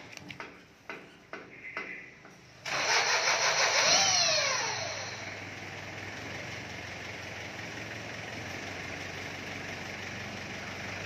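A few knocks and clatters, then about two and a half seconds in the livestock truck's engine starts with a loud burst, revs up and back down once, and settles into a steady idle.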